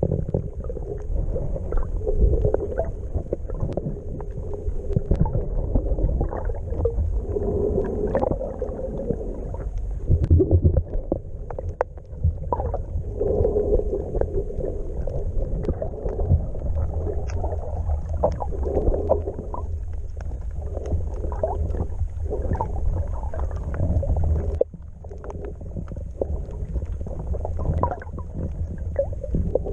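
Muffled underwater sound picked up by a camera in its waterproof housing while snorkeling over a reef: a low rumble of moving water that swells and eases, with many faint scattered clicks. The rumble drops a little about three-quarters of the way through.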